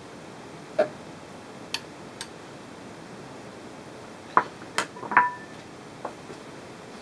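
A knife clinking against a small glass bowl as food is pushed out of it, then the glass bowl and a metal knife set down on the counter: a few sharp clinks and knocks, the loudest cluster from about four and a half seconds in, one with a short glassy ring.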